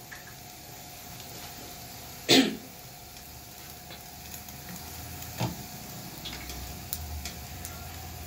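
Ghee sizzling faintly under a sheet of feteer pastry in a nonstick frying pan. A short cough comes about two seconds in, and a few light taps of the metal spatula on the pan follow later.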